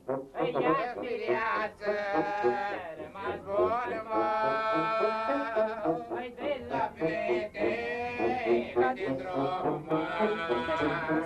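Live band music: a melody of held notes and quick runs over a steady rhythmic accompaniment.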